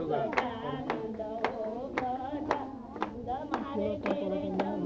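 Hand clapping in a steady rhythm, about two claps a second, keeping time with a group of voices singing a devotional song at a Ganesh pooja. The singing is fainter in the middle of the stretch while the claps keep going.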